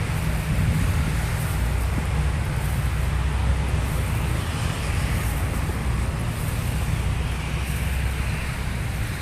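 Blizzard wind buffeting the microphone: a steady low rumble with a hiss over it.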